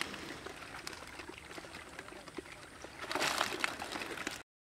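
Shallow muddy water sloshing and splashing around a woven basket of live fish, with many small wet splashes and clicks, and a louder rush of water about three seconds in as the basket is lifted. The sound cuts off suddenly near the end.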